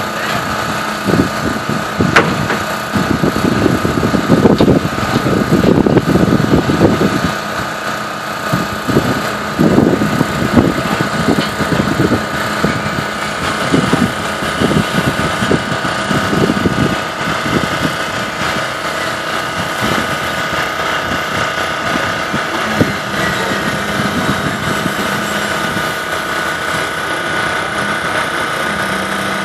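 Construction machinery engine running steadily with a constant whine, with irregular low rumbling through the first half that settles later on.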